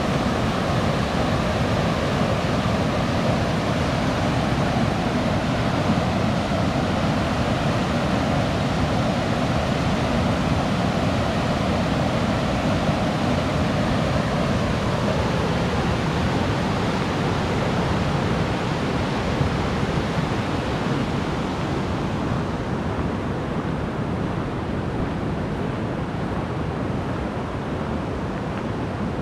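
Whitewater of the Langinkoski rapid on the Kymi river rushing in a steady, loud roar of water, a little quieter and duller over the last few seconds.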